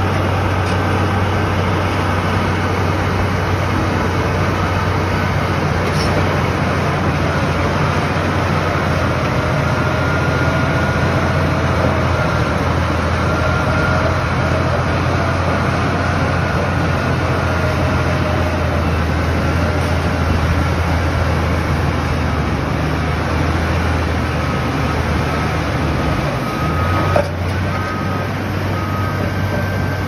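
Heavy mining machinery running steadily, with a deep constant hum and faint whining tones above it. About 27 seconds in, a single knock sounds and the hum shifts slightly.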